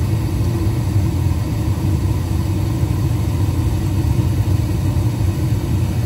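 Trane gas furnace firing: the burners and draft inducer running with a steady low rumble, before the main blower has come on.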